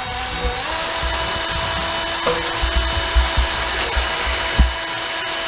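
Power drill driving a self-tapping screw. Its motor whine steps up in pitch as it spins up, then runs steadily at one pitch, with a few low knocks partway through.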